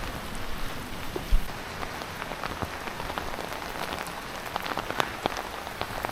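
Heavy rain pouring down, with many individual drops striking sharply through a steady hiss, and a single low thump about a second in.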